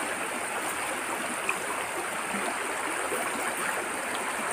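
A shallow stream running over rocks: a steady rush and babble of water.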